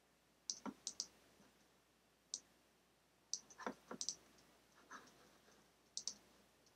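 Faint, irregular clicks from a computer's controls, about a dozen, coming in small clusters, as shapes are clicked and placed in a drawing program.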